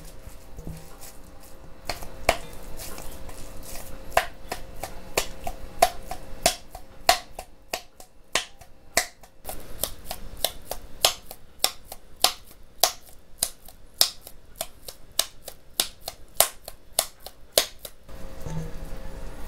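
A long run of sharp taps or clicks, about two to three a second, thinning out briefly near the middle and stopping shortly before the end, over faint background music.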